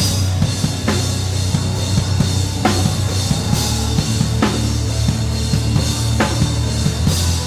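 Rock drum kit played along with the band's music: a fast, busy bass-drum pattern under a sustained low bass, with a sharp accented hit about every two seconds.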